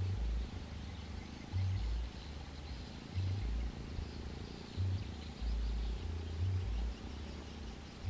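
Outdoor field ambience: a low rumble that swells about every second and a half, with faint high chirps of distant birds in the background.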